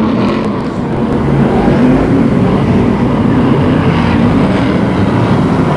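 Several BriSCA F1 stock cars' V8 engines running hard at race speed, the pack's engine noise loud and steady.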